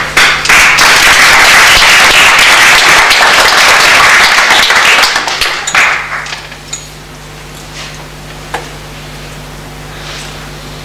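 Audience applauding. The applause tapers off and stops about six seconds in, leaving a quiet hall with a steady low hum and an odd small knock.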